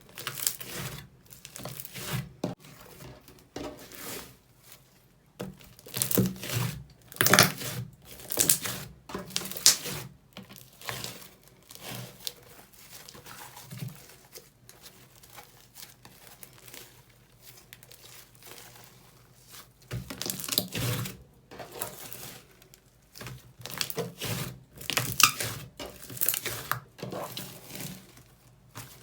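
Slime being squeezed, stretched and pressed by hand, in irregular bursts with short pauses between and a quieter stretch in the middle.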